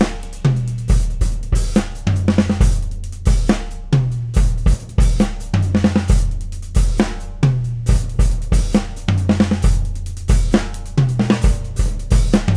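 Acoustic drum kit played in a steady groove of kick drum, snare and cymbals. Fills recur every couple of seconds, stepping down in pitch from the high tom to the floor tom.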